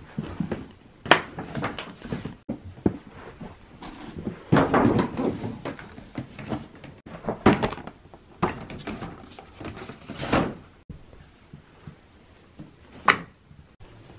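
Rigid cardboard gift boxes, a cloth dust bag and a shopping bag being handled and packed away: irregular knocks and thunks of box lids and cardboard, with rustling, and one sharp click near the end.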